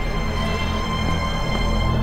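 Tense drama underscore: sustained high notes held over a low droning bass.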